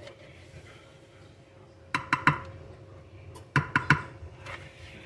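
Spatula knocking and scraping against a mixing bowl while batter is worked out of it: two quick runs of three sharp knocks, about two seconds in and again near four seconds.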